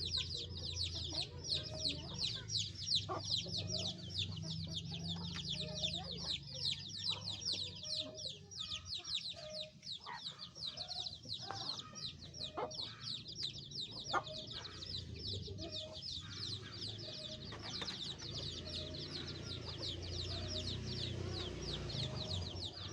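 A crowd of chicks peeping without pause, many quick high cheeps each falling in pitch, calling for the mother hen. Short low clucks come in every second or so, with a few sharp clicks in the middle.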